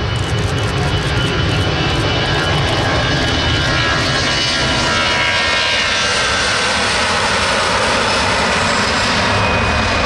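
Twin turbofan engines of an Airbus A320-family airliner running loud as it rolls along the runway close by: a deep rumble under a whine whose tones slide down in pitch from about midway as the jet passes and moves away.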